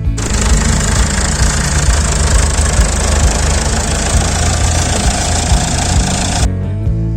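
An engine running steadily, cutting in just after the start and stopping abruptly near the end, over background music with a steady bass line.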